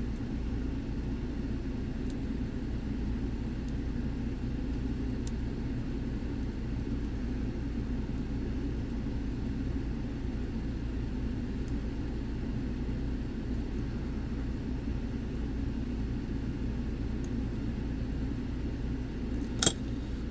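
Steady low background rumble with faint, sparse light ticks of a half-diamond pick working the pins of a dimple-core lock. A single sharp click near the end, as the lock opens.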